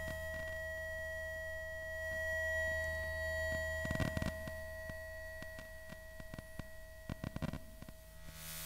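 Electromagnetic emissions from an ASUS laptop's electronics, picked up by a loudspeaker coil used as an inductive pickup over the keyboard. There is a steady electronic whine of several held tones over a low hum. Bursts of crackling clicks come about four seconds in and again near the end.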